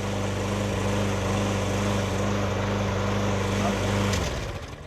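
Lawnmower engine running steadily, then shut off about four seconds in, its note falling as it winds down.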